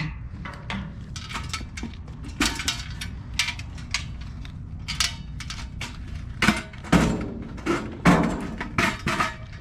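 Rummaging through bags and boxes in a dumpster: plastic crinkling and items clicking and knocking together, with a few louder knocks in the second half.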